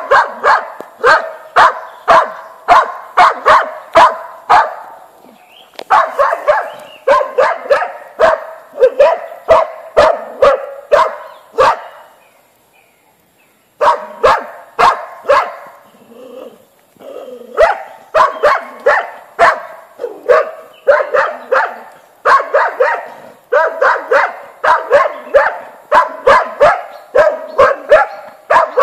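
Small hunting dog baying at wild boar: rapid runs of sharp, high barks, about two to three a second. The barking breaks off briefly about five seconds in and stops for about two seconds near the middle before starting again.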